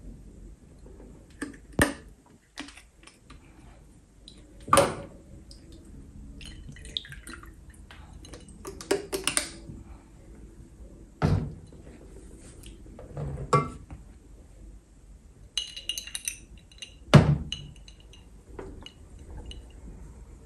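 Glassware and bottles handled on a table: separate knocks and clinks of glass every few seconds, with a ringing glass clink about sixteen seconds in.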